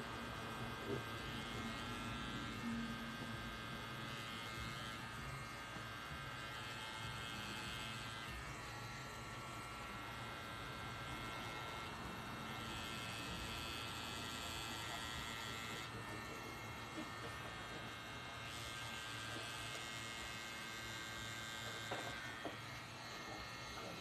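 Pen-style tattoo machine running with a steady electric buzz as the needle works ink into skin, with a couple of light clicks near the end.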